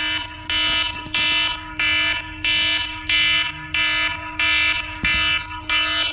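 Smartphone alarm ringing: a repeating electronic tone pulsing about one and a half times a second, with a steady hum underneath.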